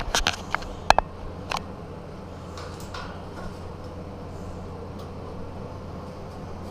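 A steady low mechanical hum, with a few sharp clicks and knocks in the first second and a half, the loudest about a second in, and a few faint ticks after.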